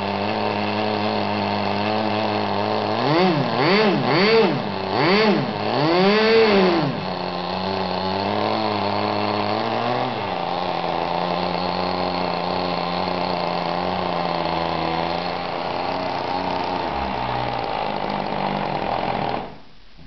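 O.S. Max 1.76 cc two-stroke glow marine engine running on its first run after break-in, with a small airplane propeller on the flywheel. It is revved up and down four times a few seconds in, then runs steadily until it cuts off suddenly near the end.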